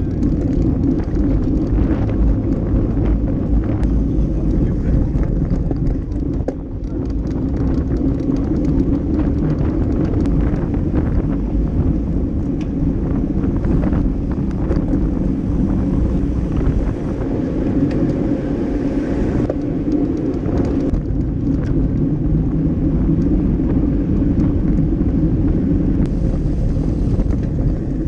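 Steady wind rush and road rumble picked up by an action camera mounted on a road bike's handlebar, riding at race speed over paved streets.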